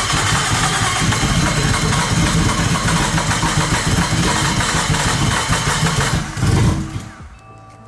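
Nissan Skyline R34's engine running loud and uneven after starting, surging briefly about six and a half seconds in, then dying away as it stalls. The owner blames the car's ECU.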